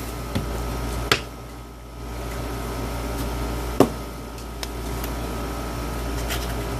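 Steady low hum of room or bench noise, with two light clicks, one about a second in and another near four seconds.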